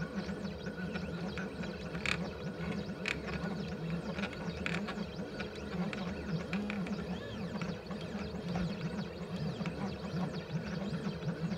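Stepper motors of a CNC 3018 driving a drag knife head: a buzzing whine that keeps shifting up and down in pitch as the head speeds up, slows and changes direction, with a few short sharp clicks.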